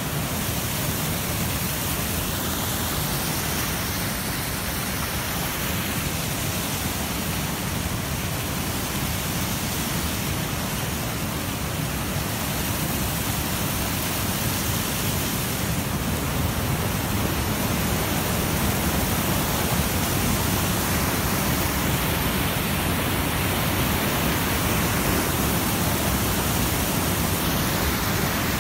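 Steady rush of whitewater, a stream tumbling over rocks beneath fallen logs, getting a little louder in the second half.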